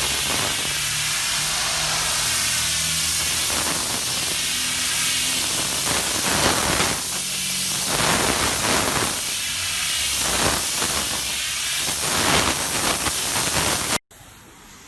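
Pressure washer running, its high-pressure water jet spraying against a surface in a steady loud hiss, with a low hum underneath. It cuts off abruptly near the end.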